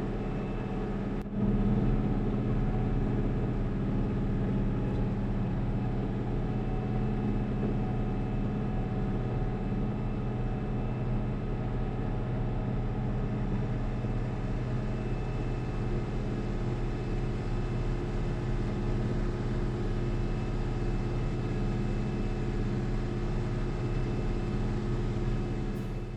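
International 1586 tractor's six-cylinder diesel engine running steadily under load while pulling a corn planter through the field. A single click about a second in, after which it is a little louder.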